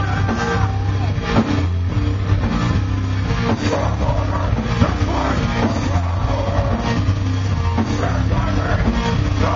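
Live heavy metal band playing loud, with electric guitars, bass and drum kit, and a vocalist shouting harsh vocals into the microphone.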